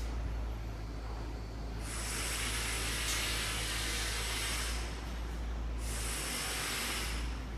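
Steady deep rumble under a high-pitched hiss that starts about two seconds in, stops near the middle, and starts again a second later.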